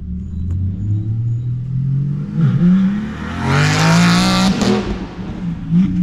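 Car engine revving: its pitch climbs and falls several times, with the hardest, loudest rev about three and a half to four and a half seconds in.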